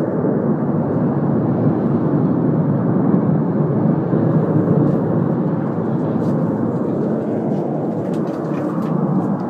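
Escaping gas burning in a large fire after a gas explosion, heard as a loud, steady, unbroken rushing noise.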